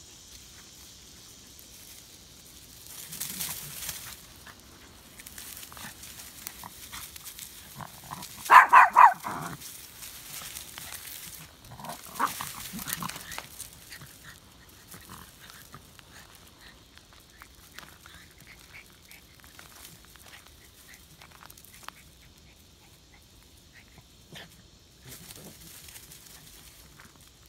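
A dog barking: two loud barks in quick succession about eight and a half seconds in, and a few more around twelve seconds. Between them come scattered rustling and crunching footsteps in dry leaves and gravel.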